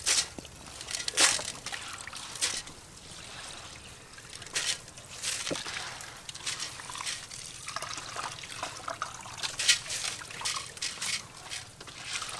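Water dribbling and splashing in irregular bursts as hands wash raw rice in a metal pot, lifting the grains through the water and squeezing out wet handfuls, the water trickling back into the pot.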